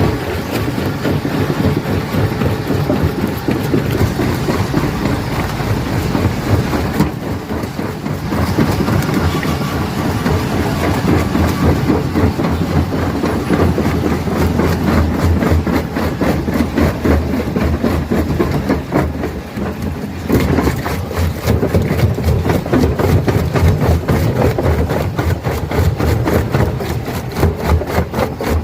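Rock crusher running and crushing stone: a dense, rapid clatter of rock over a steady low machine drone, dipping briefly twice.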